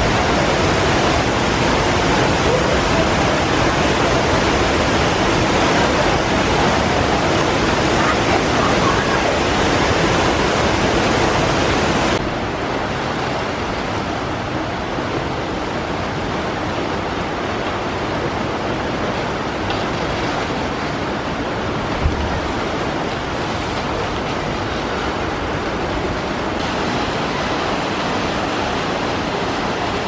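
Rushing, churning water in a river rapids ride's channel, a steady even rush. About twelve seconds in it drops to a softer, duller rush.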